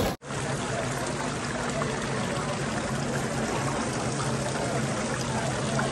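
Fountain water splashing steadily into its basin, an even rushing hiss, with a faint low hum underneath.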